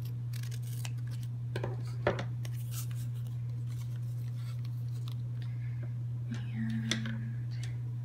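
Scissors cutting through a strip of paper sticker card with a few snips, the loudest about two seconds in, followed by light paper handling as the card is slid into a pocket. A steady low hum runs underneath.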